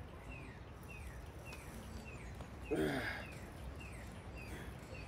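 A bird calling over and over, a short falling chirp about twice a second, over faint outdoor background. A little under three seconds in comes one short, low vocal sound that falls in pitch.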